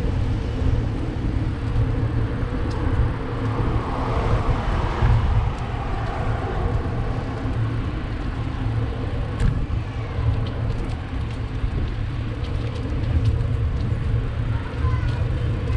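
Steady low wind rumble on the microphone of a bicycle ride, with road traffic going by; one vehicle swells past about four to five seconds in.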